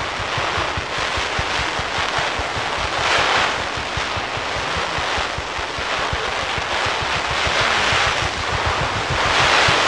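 Fireworks: volleys of glittering comets fired in fans from ground level, a dense crackling hiss that swells and fades in waves over many quick low launch thumps.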